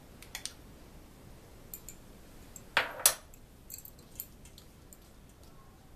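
A metal spoon clinking and scraping against a small bowl as melted desi ghee is spooned into flour. About three seconds in comes a louder double clatter as the bowl and spoon are set down, followed by a few light clicks.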